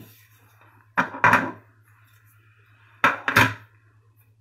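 Metal pocket knives and tools being handled on a stone worktop: two pairs of sharp clacks, about a second in and about three seconds in, over a steady low hum.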